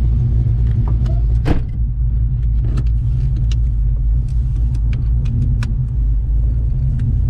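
LS1 5.7-litre V8 in a VN Commodore running steadily under way, heard from inside the cabin as a constant low drone. Scattered light clicks and rattles sound over it.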